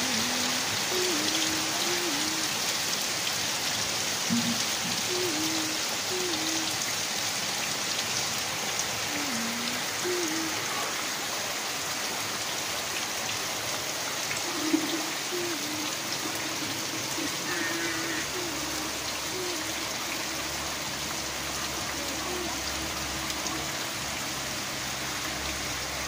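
Heavy rain falling steadily on ground and roofs, a dense even hiss.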